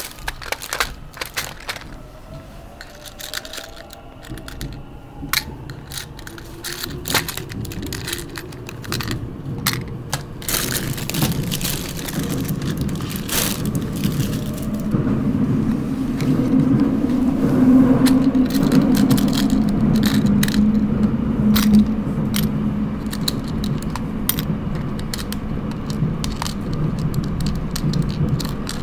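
Subway train running, its low rumble and motor hum building after the first few seconds and loudest near the middle. Over it, frequent clicks and rattles of small plastic miniature toys in a plastic compartment box being handled.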